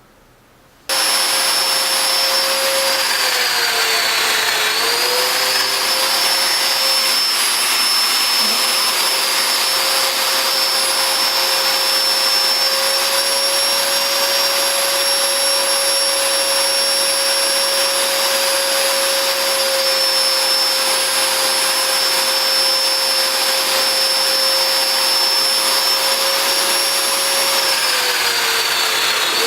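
A high-speed electric motor, such as a woodworking power tool's, switches on about a second in and runs with a steady high whine over a hiss. Its pitch dips briefly twice, once a few seconds in and again near the end.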